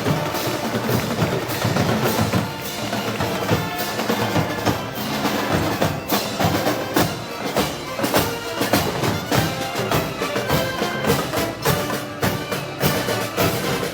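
Festival band music with dense drum and percussion strikes over sustained pitched instruments.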